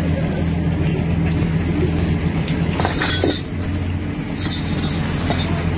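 Fishing vessel's engine and deck machinery running with a steady low hum. A few brief sharp sounds come about three seconds in.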